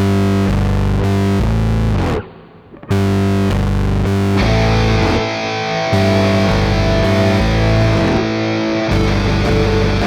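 Intro music: distorted electric guitar playing heavy, sustained chords over a deep low end, cutting out briefly about two seconds in, with a fuller, brighter layer coming in about four seconds in.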